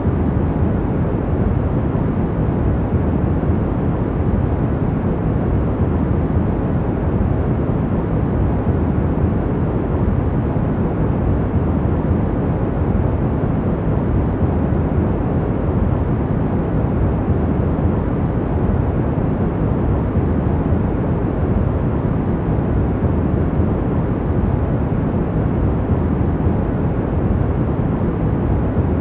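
Steady, unchanging sleep-aid noise: a deep, even hiss that is heavy in the low end and thin in the highs, with no rhythm, tones or breaks.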